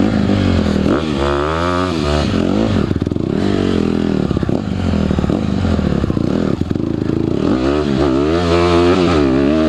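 Dirt bike engine being ridden off-road, revving up and falling back again and again as the throttle is opened and closed.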